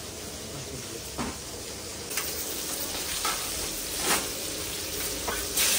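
Masala-coated pomfret shallow-frying in hot oil in a flat pan, a steady sizzle that grows louder about two seconds in. A few short clicks break through, and a sharp, louder burst of sizzle comes near the end.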